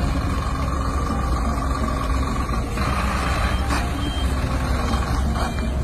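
Heavy truck's diesel engine running with a steady deep rumble. A thin high tone sounds over it for the first couple of seconds, and a short hiss comes about three seconds in.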